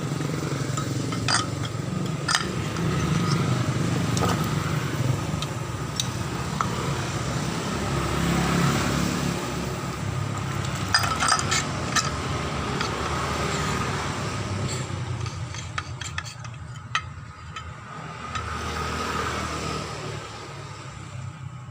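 Honda BeAT Pop scooter engine and CVT running with a steady rough growl from the CVT housing, broken by scattered metallic clinks. The mechanic takes the rough sound for worn bearings in the CVT.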